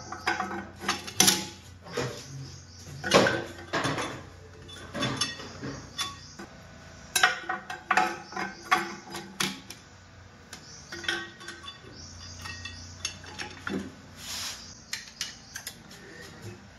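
Steel clutch rings and plates of a 6T41 six-speed automatic transmission clinking and knocking against each other and the aluminium case as they are handled and seated: irregular metallic clicks with brief ringing, the loudest knocks about three seconds in.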